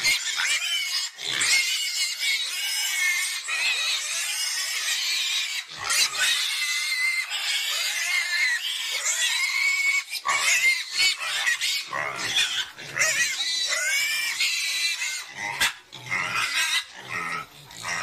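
Young domestic pigs squealing almost without pause: high, wavering squeals with a few short breaks.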